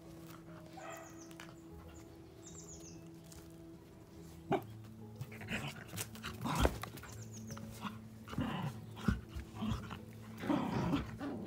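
Young puppies yapping in short bursts, starting about four and a half seconds in.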